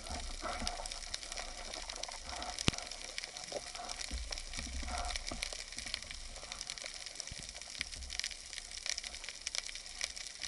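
Underwater sound through a camera's waterproof housing: a steady fizzing crackle with occasional low rumbles, and one sharp click about two and a half seconds in.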